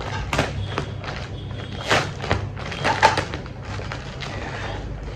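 Handling noises from unboxing a new backpack: a few separate thumps and taps as the bag and its packaging are moved about.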